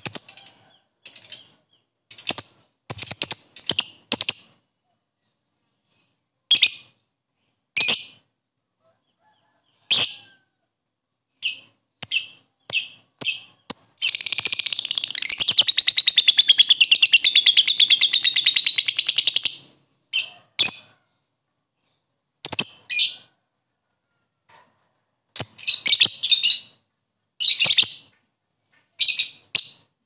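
A lovebird giving short, shrill, high chirps in scattered clusters, and about halfway through one long, rapid chattering trill lasting some six seconds, the drawn-out 'ngekek' call prized by keepers, before going back to single chirps.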